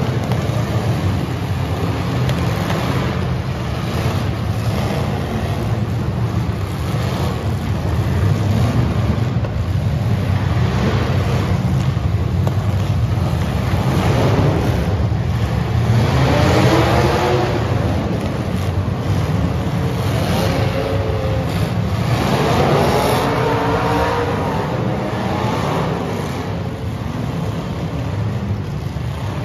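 Several full-size demolition derby cars' engines running together in a steady rumble, with engines revving up in surges about halfway through and again a few seconds later, and occasional knocks of cars colliding.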